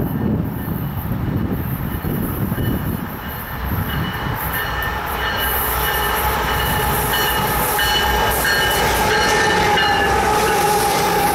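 Freight train led by two Canadian Pacific GE AC44CWM locomotives approaching and then passing close by: a low rumble with wind noise at first, then a steady high squeal that builds from about halfway and grows louder as the locomotives go by.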